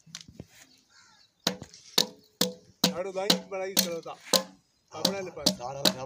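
Sharp, evenly spaced knocks, about two a second, starting about a second and a half in, as a part is tapped home on an R180 single-cylinder diesel engine during its rebuild. A man's voice talks between the knocks.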